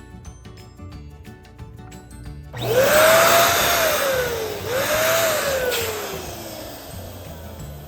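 Electric balloon pump running twice in quick succession with a loud rush of air. Each time its motor note rises as it spins up, holds briefly, then drops as it slows. Background music plays underneath.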